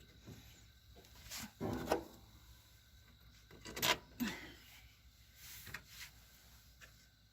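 Hand tools scraping and knocking on metal as the master cylinder's mounting bolts are worked in, with three louder scrapes spread through.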